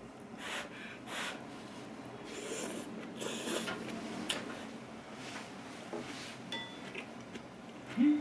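Close-up eating sounds of instant ramyeon noodles: several short slurps in the first few seconds, then lighter chewing and mouth clicks. A brief loud vocal sound, like a hum, rises near the end.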